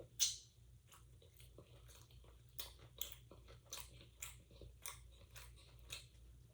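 Close-miked mouth chewing of food: a sharp bite about a quarter second in, then scattered wet crunches and mouth clicks, a few each second.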